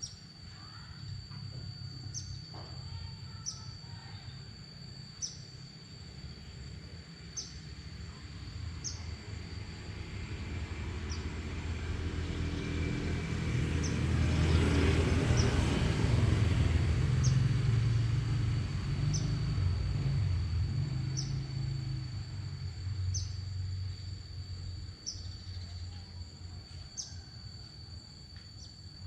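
Steady high-pitched insect trill with short higher chirps every second or two. A low rumble from a passing vehicle swells over several seconds, is loudest about halfway through, then fades.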